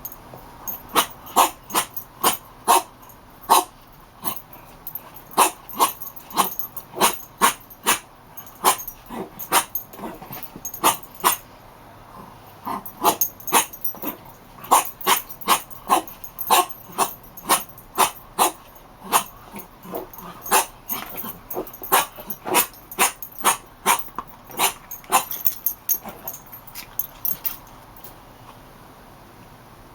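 A dog chewing a squeaky toy, making it squeak over and over in quick runs of about two squeaks a second. There is a short break about twelve seconds in, and the squeaks die away near the end.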